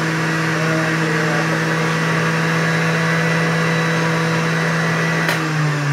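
Juiceman centrifugal juicer's electric motor running at steady speed with a loud hum. Near the end there is a click, and the motor's pitch starts to sink as produce is pushed down into it.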